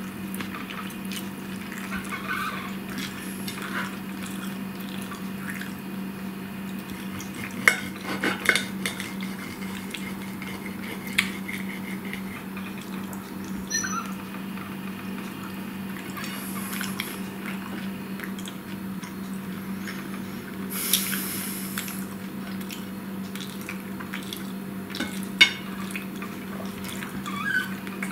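Metal fork clinking and scraping against a plate while eating, a scattered handful of sharp clicks, over a steady low hum.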